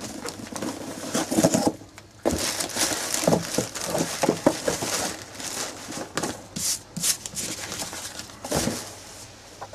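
Cardboard shipping box and crumpled packing paper rustling and crinkling as the contents are pulled out by hand, with light knocks and scrapes against the box.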